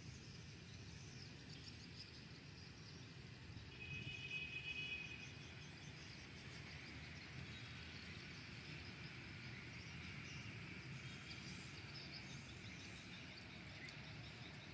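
Quiet outdoor ambience: a steady, low background hiss with faint chirping of small birds or insects, and a brief, slightly louder run of chirps about four seconds in.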